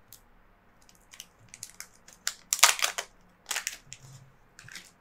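Plastic LEGO parts bag being opened: crinkling plastic in a run of short bursts, the loudest a little past halfway through.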